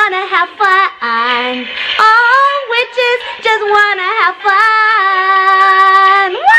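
A woman singing in a high, playful voice, sliding between notes, then holding one long steady note near the end and finishing with a quick upward swoop.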